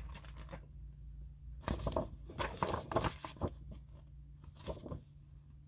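Paper and cardboard record sleeves and album jacket being handled: scattered rustles and light taps, heaviest from about two seconds in, over a steady low hum.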